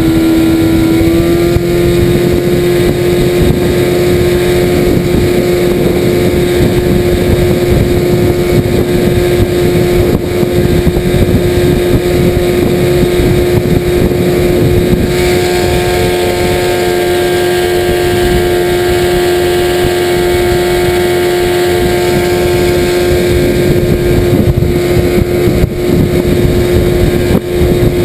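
Outboard motor running steadily under way, pushing a welded aluminum skiff, with wind and water rushing past; the engine note lifts slightly about a second in.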